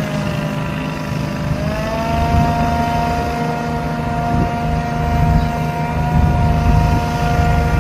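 Unmanned pest-control sprayer running, its engine and blower giving a steady whine over a low rumble. The whine starts lower and climbs back up to speed about a second and a half in, then holds.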